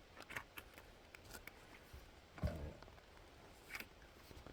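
Faint metallic clicks and scrapes of worm-drive gear clamps being handled and slid onto plastic water pipe, with one short low thump about halfway through.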